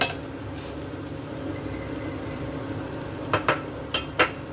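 A clack as salted squid is tipped from a bowl into a wok of sambal, then a spatula knocking four times against the wok as the squid is stirred in, the last knock the loudest. A steady low hum runs underneath.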